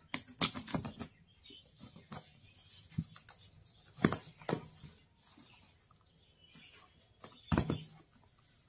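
Cardboard shipping box being opened: packing tape cut with a blade and stiff cardboard scraped and crackled by hand, in irregular short sharp scrapes and cracks. The loudest come about four seconds in and again near the end, as the flaps are pulled open.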